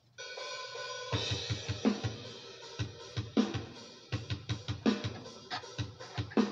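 Music starts: a held electric guitar chord rings out, then a drum beat comes in about a second in, with kick, snare and hi-hat and a low drum hit about every second and a half.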